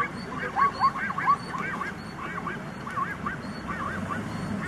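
A rapid series of short animal calls, each rising and falling in pitch, several a second, coming thickest in the first second and a half and thinning out later.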